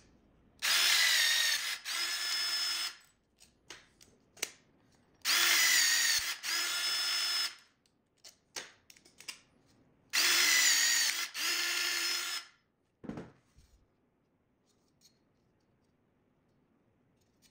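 Cordless pop rivet tool setting three pop rivets in a flap hinge bracket. Each time, its motor whirs for about two seconds with a short break midway, and light clicks of handling fall between the cycles.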